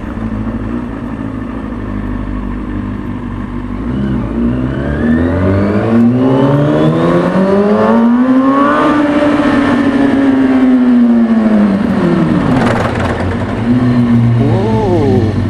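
2003 Kawasaki ZX-6R 636 inline-four engine running low at first, then revving up in one long climb starting about four seconds in. The pitch peaks around nine seconds and winds back down by about thirteen seconds. The ride is through a concrete parking garage.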